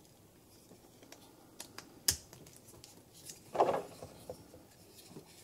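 Two parts of an action figure's fusion cannon accessory clicking and scraping as they are fitted together: a sharp click about two seconds in, a short scrape a second and a half later, and light ticks between.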